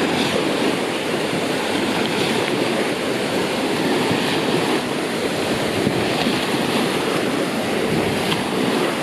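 Artificial waves in a water park wave pool, a steady loud wash of surf breaking and churning.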